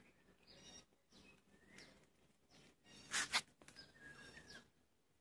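Small birds chirping faintly, short quick downward chirps repeating every half second or so, with one brief loud noise a little past the middle.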